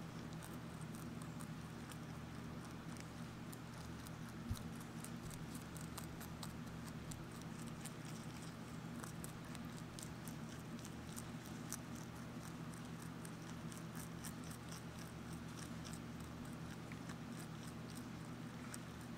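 Lop-eared rabbit chewing curly kale: a rapid run of crisp little crunches, over a steady low hum. One soft thump about four and a half seconds in.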